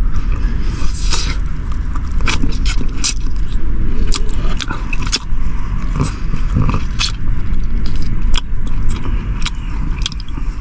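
Gnawing and chewing on lamb spine bones, with many short irregular crunches and scrapes, over a steady low rumble inside a car.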